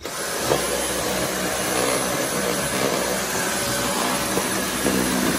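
Dyson cordless stick vacuum switched on with its trigger and running steadily with a loud, even whirr and high whine, its motorised brush head driven over the floor.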